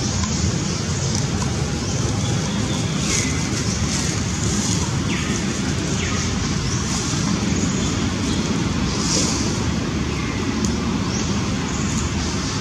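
Steady outdoor background noise, a constant rush like distant road traffic, with a few faint short falling whistles over it now and then.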